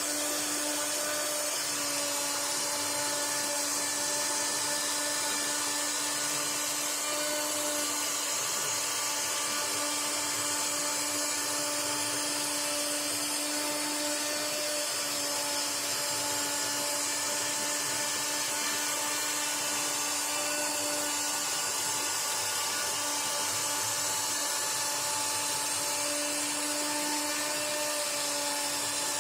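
CNC router spindle whining steadily as a tapered engraving bit (1 mm tip radius) cuts into a solid ash board.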